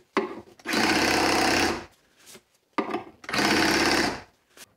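Reciprocating saw driving a fret crowning file, run in two short bursts of about a second each. These are the final light straight strokes that touch up the peak of a guitar fret's crown.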